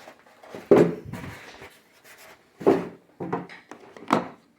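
Small cardboard box being opened and handled: four short knocks and scrapes of cardboard, spread over a few seconds.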